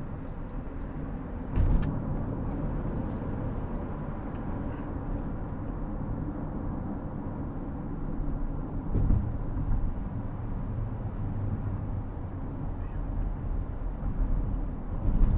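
Steady road and tyre noise of a car driving on an expressway, heard from inside the cabin. Two louder thumps come about a second and a half in and about nine seconds in, and the noise grows louder near the end.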